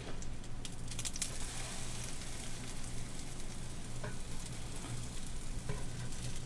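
Food sizzling steadily in a hot cast-iron frying pan, with a few sharp clicks about a second in and a couple of faint ticks later.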